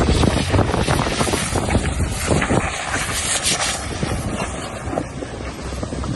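Wind buffeting the microphone in a snowstorm, a rough crackling rumble with a vehicle running underneath.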